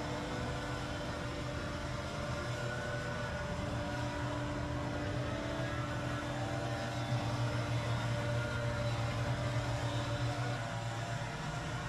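Small gasoline engine on outdoor power equipment running steadily at a constant speed, with a slight shift in pitch near the end.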